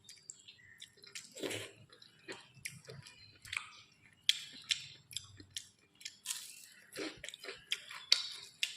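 Close-up eating sounds: wet, irregular chewing with lip smacks, clicks and small crunches from a mouthful of rice and curry.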